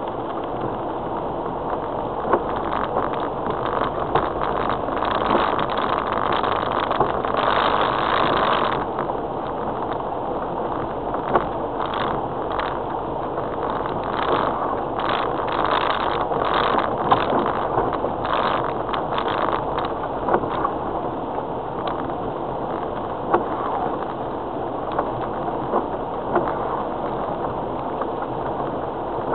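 Heard from inside the cab of a 2002 Land Rover Freelander TD4 (2.0-litre turbodiesel) driving slowly along a rough, wet green lane: steady engine and tyre noise, with frequent knocks and rattles from the bumpy track, busiest through the middle.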